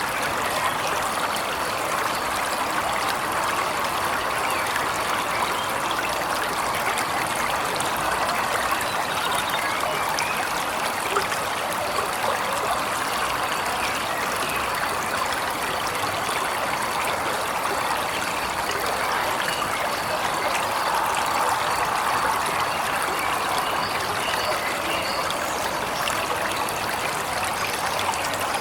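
Waterfall's steady rush of running water, even and unbroken throughout.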